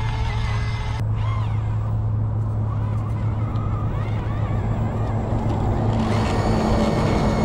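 Small electric motor and metal driveline of a 1/24-scale RC crawler whining as it crawls over sand and driftwood, the pitch rising and falling with the throttle, getting a little louder about six seconds in.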